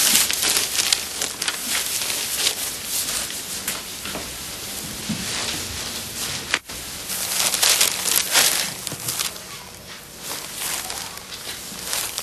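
Sheets of paper rustling and crackling as they are handled and leafed through, in an irregular run of dry ticks, with a brief gap a little past halfway.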